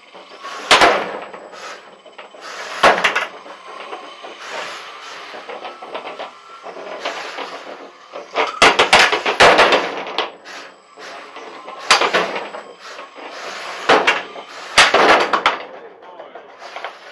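Small 450 g combat robots banging into each other and the arena walls: a series of sharp knocks and clatters, single hits about a second in and near three seconds, a quick cluster of hits around the middle, then several more hits near the end.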